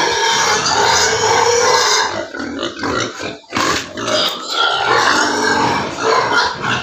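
Hungry pigs squealing loudly in their pen at feeding time, crying to be fed. A dense, continuous din with a brief lull about three seconds in.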